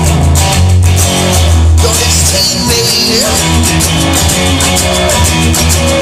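Rock music, an instrumental passage led by guitar over a steady bass line, with no vocals.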